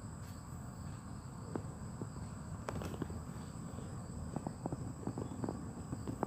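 A steady, high-pitched insect chorus drones on, with scattered small clicks and rustles from about a second and a half in.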